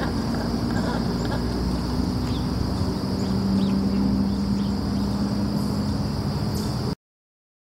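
Outdoor nature ambience: a steady high insect drone with a few short bird chirps over a low steady hum. It cuts off suddenly about seven seconds in, leaving dead silence.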